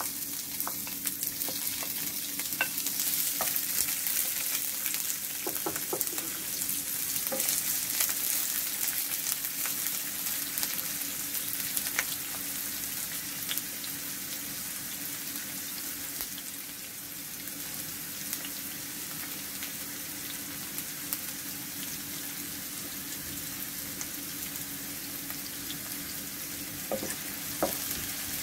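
Sliced onions sizzling in hot oil in a nonstick frying pan, a steady hiss that is loudest at first and eases a little about halfway through. A few light knocks of a wooden spatula against the pan, most near the end.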